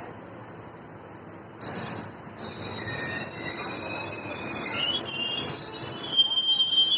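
Train wheels squealing against the rails: several high, wavering screeches that start about two and a half seconds in and grow louder, over a low running rumble. A short hiss comes just before the squeal begins.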